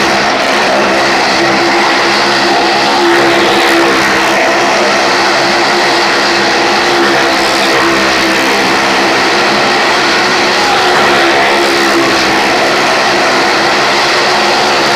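Motorcycle engine running loud and steady at high revs as it circles the wall of a well-of-death drum.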